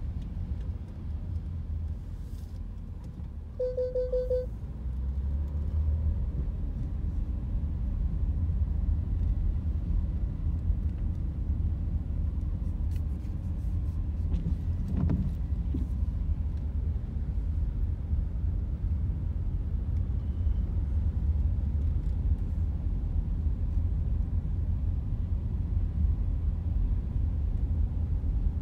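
Steady low rumble of a car driving, heard from inside the cabin. A short electronic beep sounds about four seconds in.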